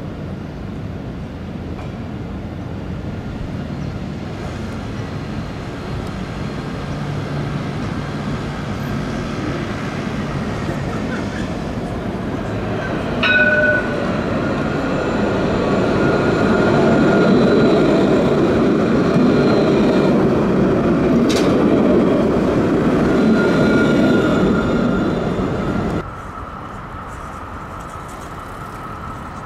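Alstom Citadis electric tram approaching and passing close by: a steady running sound of motors and steel wheels on rail that grows louder and is loudest as it goes past, with a brief high ring about halfway and a sharp click a little later. It cuts off suddenly near the end to a quieter hum.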